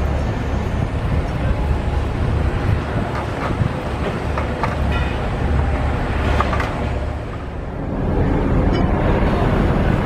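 Heavy machinery running steadily, a dense low engine rumble from the cranes and trucks at the site, with a few light metallic clinks in the middle and a short dip in loudness before it builds again.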